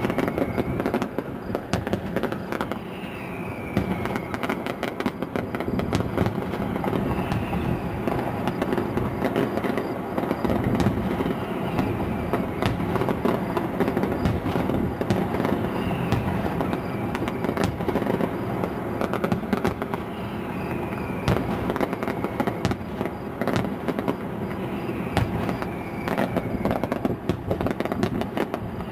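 Fireworks display heard from a distance: a dense, unbroken run of bangs and crackles.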